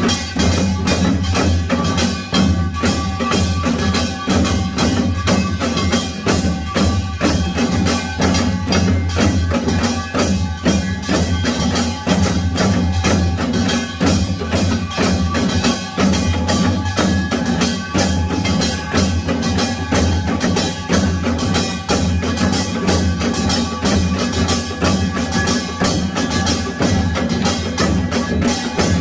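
Korean pungmul percussion ensemble playing a fast Yeongnam nongak rhythm without a break: dense, rapid strikes of small gong and drums over a steady ringing of gongs and a deep drum boom.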